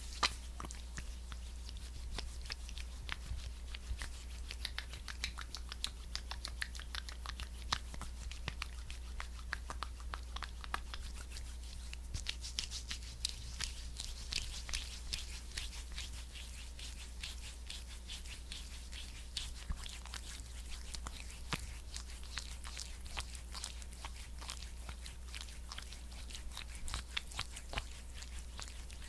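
A thick, sticky skincare balm worked close to the microphone, giving a dense run of fine sticky crackles and clicks. They grow a little busier about halfway through.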